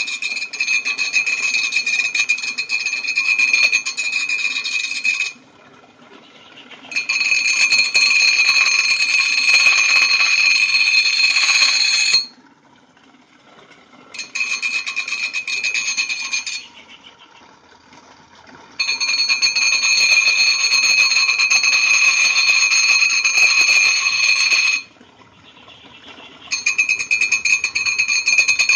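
Steel blade grinding against a spinning sharpening wheel: a loud, shrill, ringing metallic grind in five stretches of about two to six seconds each, with quieter gaps between them.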